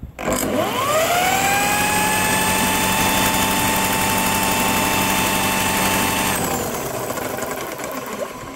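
An electric motor whining up to speed over about a second, holding a steady pitch, then stopping about six seconds in. It is most likely the motor spinning the Briggs and Stratton lawnmower engine over for a spark check.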